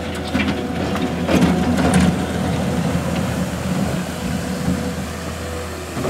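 New Holland L220 skid steer loader's diesel engine running steadily as the machine drives and turns on gravel. Rattling and clanking ride over the engine in the first two seconds, loudest near the second mark.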